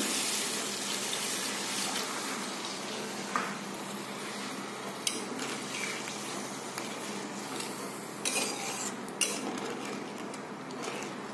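Flat metal spatula stirring and scraping in a kadai of paneer in watery mustard gravy, with a few sharp taps of the spatula against the pan, over a steady sizzle.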